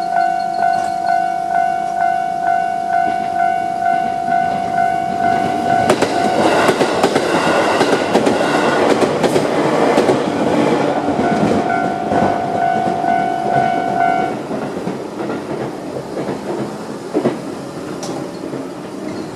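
Railway crossing's electronic warning bell ringing about twice a second while a JR 211 series electric train runs over the crossing, its wheels clacking over rail joints, loudest from about six to ten seconds in. The bell stops about fourteen seconds in and the train sound fades away.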